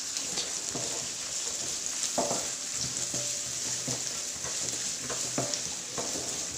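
Chopped shallots, ginger, garlic and curry leaves frying in hot coconut oil in a pan, with a steady high sizzle. A spoon or spatula stirring them now and then scrapes and taps against the pan.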